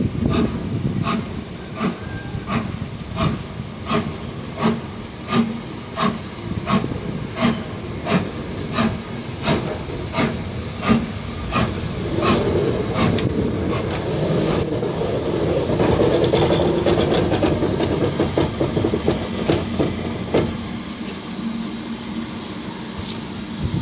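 BR Standard Class 4MT 4-6-0 steam locomotive working toward and past the listener, its exhaust chuffing in even beats about one and a half a second. About halfway through, a hiss of steam builds as it draws close, then eases off as it goes by.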